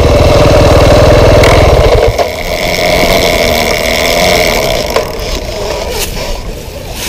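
2009 KTM 530 EXC dirt bike's single-cylinder four-stroke engine running as the bike rides along, loudest for the first two seconds and then easing off.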